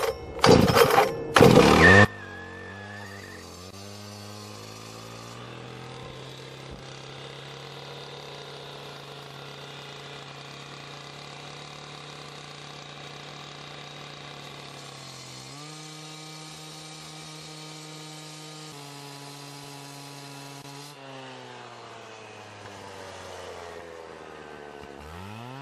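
Gas-powered handheld cut-off saw: the engine is revved in three loud blips, then runs steadily at high speed while cutting a notch into a concrete curb. Its pitch steps up about fifteen seconds in, sinks a few seconds later, and climbs sharply again near the end.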